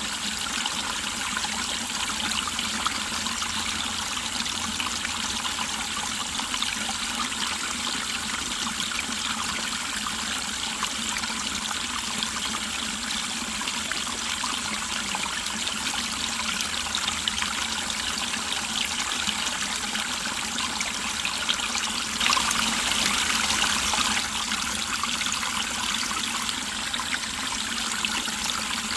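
Mountain stream flowing and trickling over rocks, a steady rush of water that swells briefly about three-quarters of the way through.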